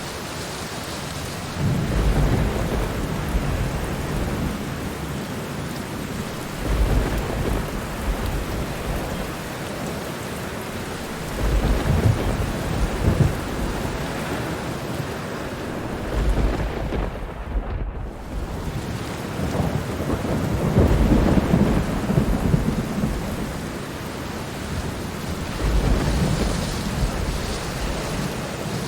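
Thunderstorm: steady heavy rain with rolls of thunder rumbling in every few seconds, the longest and loudest about three-quarters of the way through. The rain's hiss briefly drops out for a moment about two-thirds of the way through.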